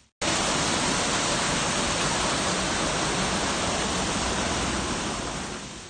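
Waterfall rushing: a steady, even roar of falling water that fades out near the end.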